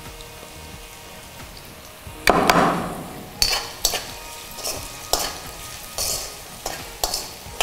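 Chopped onions and chillies frying in oil in a metal kadai, with a faint sizzle, then about two seconds in a steel spoon starts stirring them, scraping and knocking against the pan in several separate strokes.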